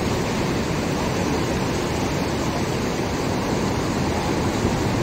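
Ocean surf breaking on a rocky shore: a steady, unbroken rushing of water.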